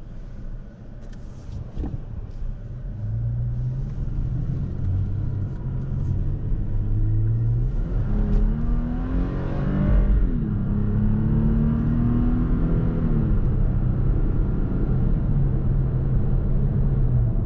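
Toyota Tacoma's 3.5-litre V6 revving hard under acceleration, heard from inside the cab: its pitch climbs, drops suddenly about ten seconds in as the six-speed automatic upshifts, climbs again and drops once more near the end. The engine is screaming at high RPM.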